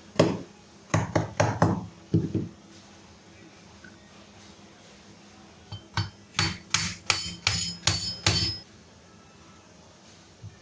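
Hammer striking metal during work on a water pump motor's bearings, in two bursts: about six blows, a pause of a few seconds, then about nine quicker blows at roughly three a second, each with a short metallic ring.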